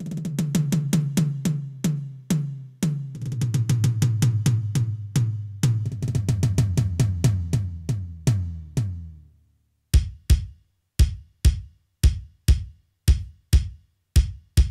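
Roland TD-8 electronic drum module playing drum sounds: quick runs of pitched tom-like strokes, a higher drum then a lower one, fading out about nine seconds in, then a dozen single evenly spaced hits, about two a second. There is dead silence between the hits.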